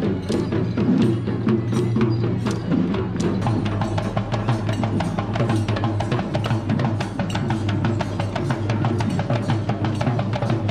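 Traditional Sri Lankan two-headed barrel drums played by hand in a fast procession rhythm, with sharp strokes several times a second and a steady low hum underneath. The rhythm changes about three seconds in.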